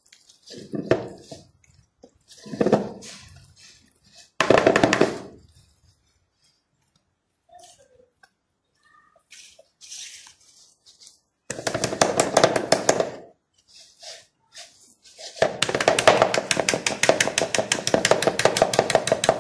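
Hands mixing and kneading soft ghee-and-flour dough in a bowl, wet squishing and rubbing in bursts with pauses, then a long spell of fast, steady kneading strokes near the end.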